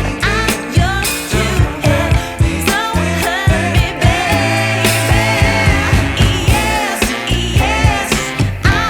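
Background pop music with a female-sounding sung vocal line over a steady, driving beat.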